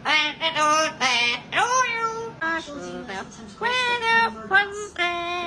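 Pet parrot vocalizing in a string of high-pitched, sing-song calls that slide up and down in pitch, some short and a few held for about half a second.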